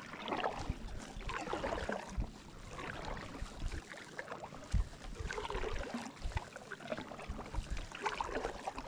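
Kayak paddle strokes: the double-bladed paddle's blades dipping into and pulling through calm lake water, with water splashing and dripping off the blades between strokes.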